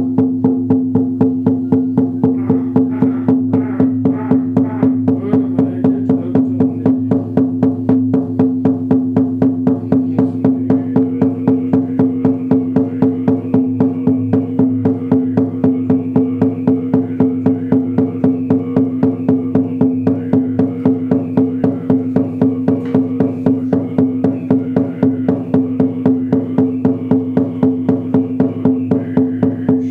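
Large rawhide shaman's frame drum beaten with a fur-padded beater in a steady, even rhythm, its low tone ringing on between strokes.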